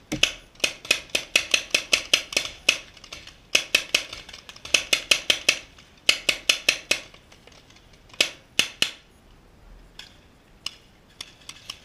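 Paintball marker firing in rapid strings of shots, about five sharp pops a second. There are four bursts, then a few single shots near the end.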